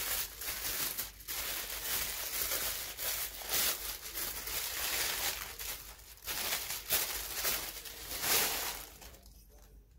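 Black tissue paper crinkling and rustling as it is unwrapped by hand, in a run of irregular crackles that dies down about nine seconds in.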